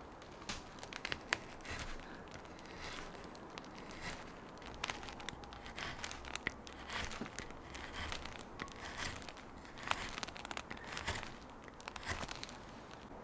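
Small carving gouge cutting shallow grooves into a section of green conifer wood, a run of short, irregular scraping cuts as shavings peel away.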